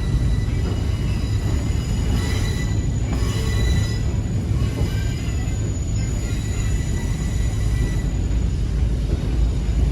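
Passenger railcar rolling on the rails: a steady low rumble with thin, high-pitched wheel squeal over it, strongest about two to four seconds in.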